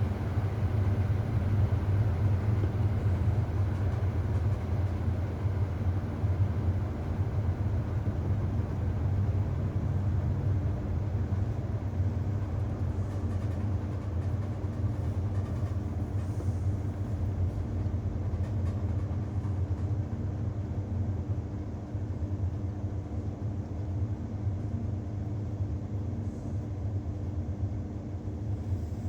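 Hoover 800RL top-loading washing machine running with a steady low motor hum, easing slightly in level near the end.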